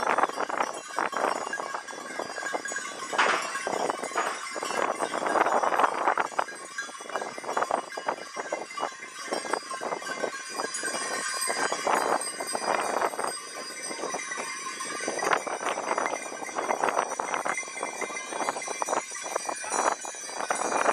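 A herd of goats walking on cobblestones: many hooves clattering, with the bells on their collars ringing.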